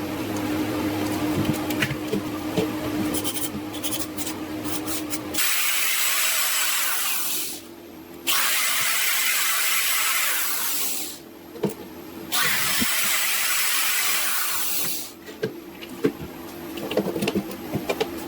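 A small machine hums steadily with light clicks. It is followed by three long bursts of hissing spray, each lasting two to three seconds with short pauses between, and then a few knocks and clicks.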